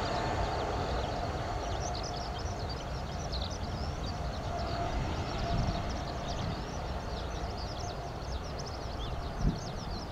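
Low rumble of a distant jet airliner, with a faint steady whine that fades out about halfway. Many small birds chirp rapidly over it, more densely in the second half.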